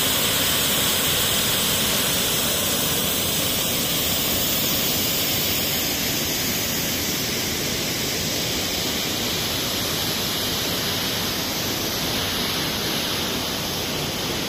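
Waterfall's rushing water: a dense, steady rush that eases slightly in loudness toward the end.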